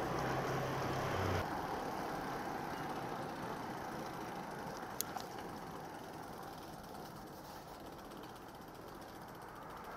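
Wind and road noise from coasting downhill on a Brompton folding bike, slowly fading. A low steady hum stops suddenly about a second and a half in, and there is a single sharp click about five seconds in.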